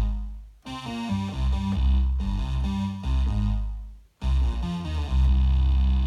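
Moog Sub 37 and Moog Minitaur analog synthesizers layered over MIDI, playing a fat bass line of changing notes with five oscillators stacked, including a Minitaur oscillator detuned down an octave and the Sub 37's sub oscillator. The line breaks off briefly just after the start and again about four seconds in.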